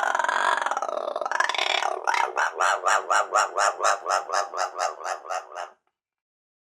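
Parrot giving a harsh, drawn-out squawk that dips and rises in pitch for about two seconds, then a run of about fifteen quick squawks, about four a second, growing fainter until they stop.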